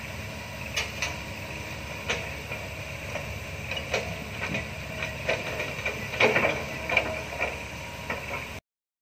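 Kobelco excavator loading logs onto a logging truck: its engine runs steadily under a string of sharp knocks and clunks as the logs are handled and set down, the loudest about six seconds in. The sound cuts off abruptly near the end.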